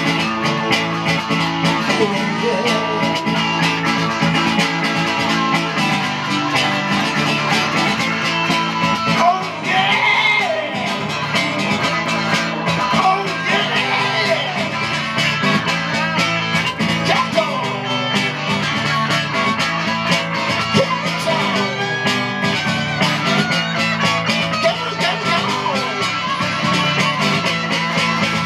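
Band music led by guitar, played as an instrumental passage between sung verses, with sliding guitar lines over a steady accompaniment.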